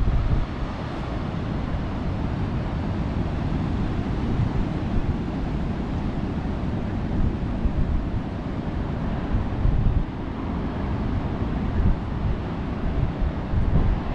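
Gusts of wind buffeting the microphone over the steady hiss of ocean waves.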